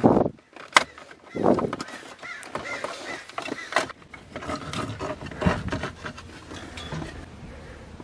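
Plastic steering-column trim shroud being handled and pried off around the ignition lock, with rustling and a few sharp clicks as its clips let go.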